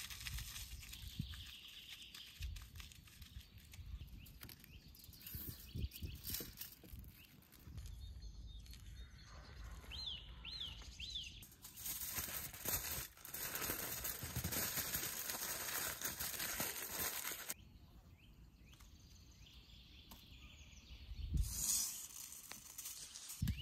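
Aluminium foil crinkling and rustling in stretches as it is folded and pressed around food by hand, with a louder rustle near the end. A few bird chirps come through about ten seconds in.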